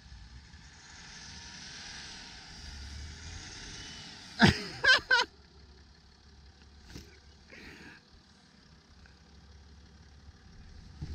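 Land Rover Discovery 4 engine pulling the heavy SUV through deep snow, a steady rise of engine and snow noise. About four and a half seconds in come three short, very loud pitched bursts close to the microphone. After them the engine sound is fainter.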